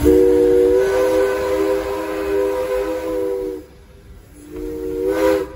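Steam locomotive's chime whistle blowing a three-note chord: one long blast of about three and a half seconds, then a shorter blast of about a second.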